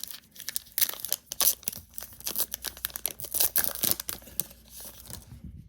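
A Topps baseball card pack's wrapper being torn open and crinkled in the hands: a dense run of sharp crackles that thins out near the end.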